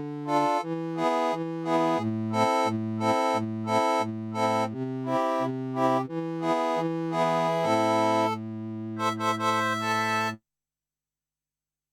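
Kurzweil K2000 synthesizer playing a factory keyboard patch dry, with no effects: chords over a moving bass line in short repeated notes, about two a second. It settles on a held chord with quick high notes over it, then cuts off abruptly about ten seconds in, leaving silence.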